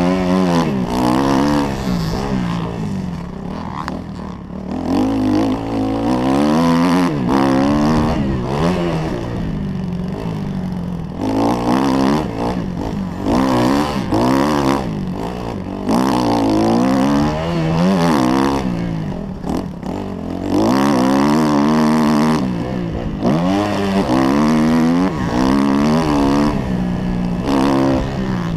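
Kawasaki KX 250F dirt bike's single-cylinder four-stroke engine revving up and dropping back again and again as it is ridden hard round a motocross track, the pitch climbing through each gear and falling off between.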